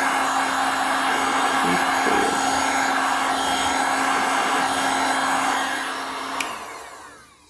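Hot-air blower running steadily, heating the edges of a phone screen to soften its adhesive; about six seconds in there is a click, and the blower winds down and fades out near the end.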